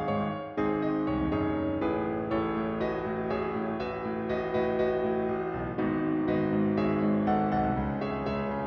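Solo piano background music, a piano arrangement of a pop song, with notes struck in a flowing, steady run.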